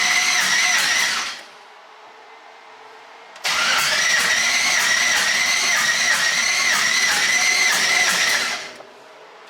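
Starter motor cranking a 5.3 LS V8 in two bursts, the second lasting about five seconds, with a steady high whine and an even pulse but the engine never catching. It is a no-start that the owner traces to the cam timing being off by a good amount after the cam install.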